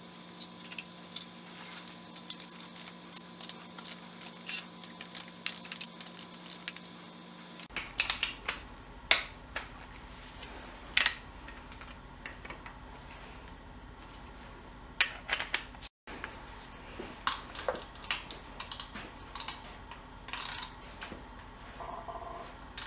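Socket ratchet clicking and metal hand tools clinking against the engine as bolts are worked on, in irregular bursts of short sharp clicks, densest in the first several seconds.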